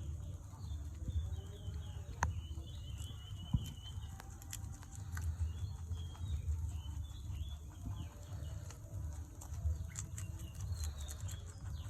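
Rabbits chewing their food, heard as scattered small crunching clicks, with small birds chirping in the background over a steady low rumble.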